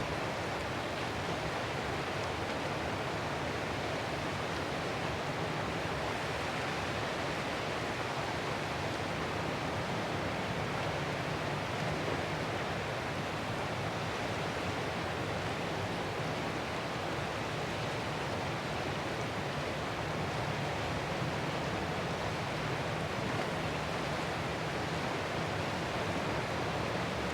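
Ocean surf making a steady, even rushing noise, with no distinct wave breaks standing out.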